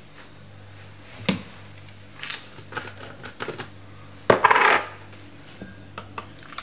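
Stainless-steel mesh sieve being handled on the rim of a glass measuring jug: a sharp clink about a second in, several lighter taps, then a louder, brief clatter a little past the middle.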